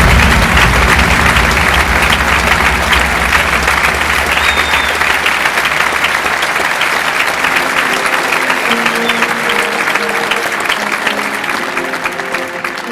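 A large audience clapping, dense and loud, thinning out gradually toward the end. Heavy, bass-laden music under it fades out about halfway through, and a lighter melody comes in a little later.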